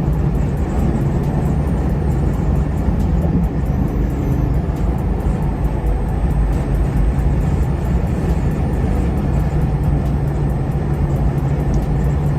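Inside a moving box Chevy: the car's engine and road noise rumble steadily, with a low, even hum throughout.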